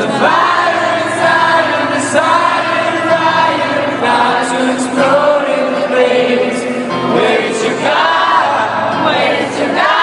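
Live band music with singing, held low bass notes changing every couple of seconds under the vocal line, recorded from the audience on a phone.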